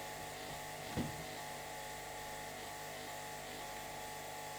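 Steady low electrical hum with a faint buzz, and one soft knock about a second in.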